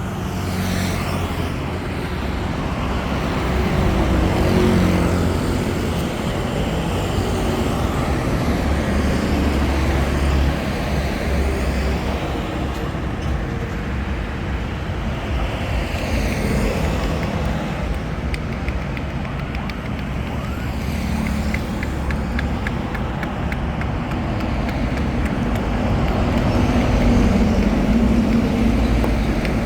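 Steady street traffic noise: engines running and vehicles passing. A run of faint clicks comes a little past the middle.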